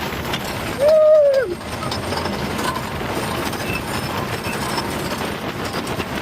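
Wooden roller coaster train running on its track with a steady rumbling clatter. About a second in, a rider lets out one short yell that falls away at the end.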